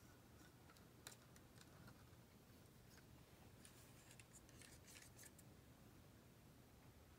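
Near silence with faint clicks and light scrapes from small plastic cups of acrylic paint and a stir stick being handled. A quick cluster of scrapes comes between about three and a half and five seconds in.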